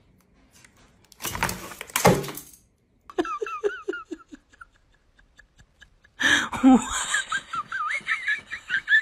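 A person laughing in short runs, louder and more continuous in the second half, after a brief loud burst of noise about a second in.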